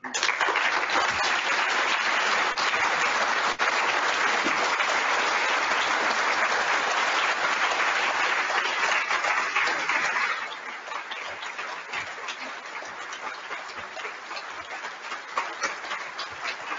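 Audience applauding at the end of a talk: dense, steady applause for about ten seconds, then quieter and thinner, with separate claps standing out.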